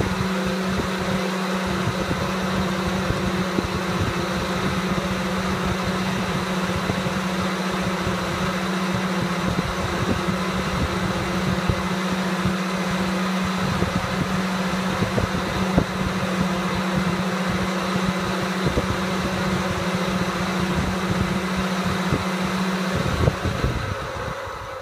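Electric cooling fan from a VW car radiator running at full speed on a PWM controller: a loud, steady rush of air over a constant motor hum. Near the end it is turned down and the sound falls away as it slows.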